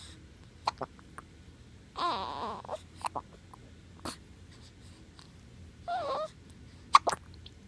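A baby hiccuping over and over: short sharp catches every second or so, with a brief fussy whimper about two seconds in and another near six seconds.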